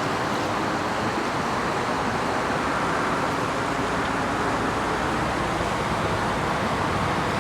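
Steady rushing of fast, shallow stream water, an even noise without breaks.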